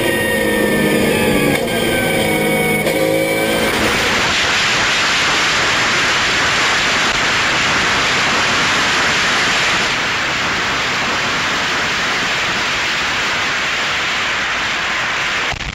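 Porsche race car's engine revving hard from inside the cockpit, its note rising and falling. About four seconds in it switches to a loud, steady rush of wind noise on an outside-mounted camera at racing speed, with no engine note heard, which cuts off suddenly near the end.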